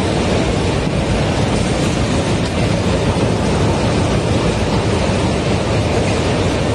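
Corrugated carton converting line running, with red carton blanks passing over its roller conveyors: a steady, loud mechanical din with no clear rhythm.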